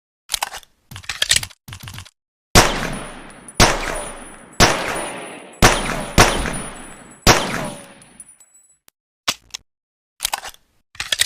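Pocket pistol sound effect: a few sharp mechanical clicks of the gun being handled, then six shots about a second apart, the fifth and sixth closer together, each trailing off in an echo. Three more short clicks come near the end.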